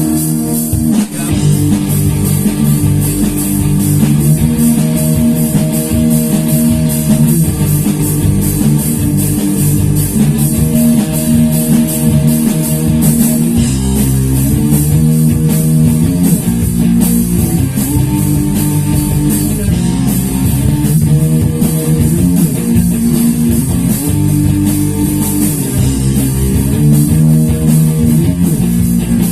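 Rock band playing an instrumental passage: guitar riffs over bass guitar and a drum kit, with a fast, steady cymbal beat.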